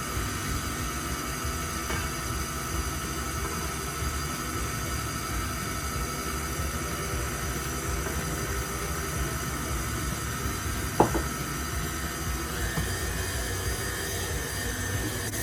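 Electric kitchen machine running steadily as it kneads pizza dough, its motor whine stepping up in pitch near the end. A single sharp knock about eleven seconds in.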